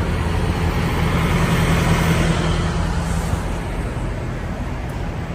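Diesel engines of parked semi trucks idling: a steady low hum under an even hiss.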